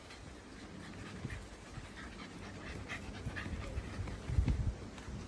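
Shiba Inu dog panting in quick, rhythmic breaths, with a brief low thump near the end.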